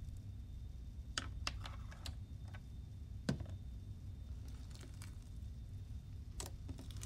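Bead-filled slime softened with lotion being kneaded by hand: scattered small sticky clicks and pops, with one sharper click about three seconds in.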